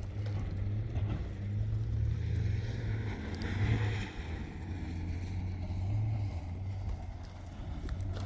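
Off-road truck engine running steadily with a low drone as it climbs a steep dirt hill, with a short swell of louder, higher noise about three and a half seconds in.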